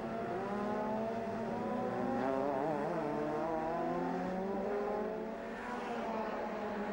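Several touring car engines running at high revs, their overlapping notes rising slowly at first, with a brief warble about two and a half seconds in.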